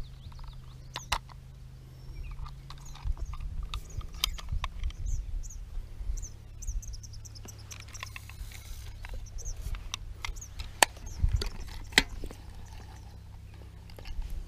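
Fishing rod and reel being handled: scattered sharp clicks and knocks, the two loudest near the end, over a low steady rumble, with birds chirping faintly in the background.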